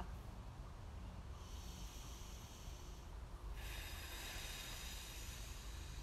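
A woman taking one full deep breath: a soft breath in from about a second and a half in, then a longer, louder breath out from a little past halfway. A steady low rumble runs underneath.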